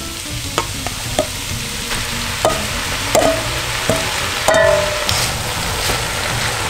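Vegetables sizzling in an enamelled Dutch oven while diced tomatoes are scraped into it from a stainless steel bowl with a metal spoon, the spoon clinking against the bowl several times, some clinks ringing, then the mixture is stirred.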